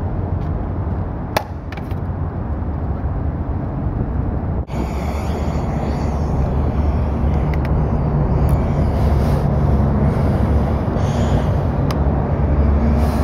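Steady outdoor background rumble with wind on the microphone, and a single sharp click about one and a half seconds in.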